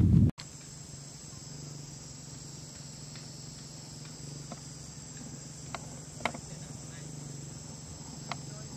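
Insects chirring steadily in a high, even band, over a low steady hum, with a few sharp clicks. At the very start a short, loud low noise cuts off abruptly.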